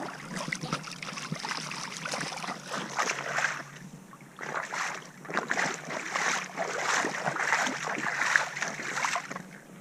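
Footsteps wading and splashing through a shallow creek, in two long stretches of irregular sloshing with a short lull about four seconds in.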